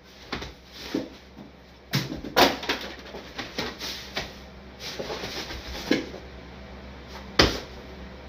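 A person landing on a bed and scrambling across it, with bedding rustling and several sudden thumps; the loudest thump comes about seven and a half seconds in.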